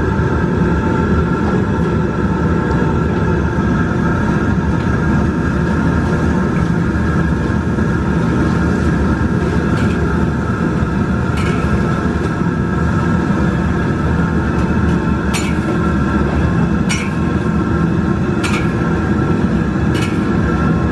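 Wontons deep-frying in a wok of bubbling oil over a loud, steady low roar of commercial kitchen noise. There are about six sharp metal clicks in the second half from the wire strainer and spatula against the wok.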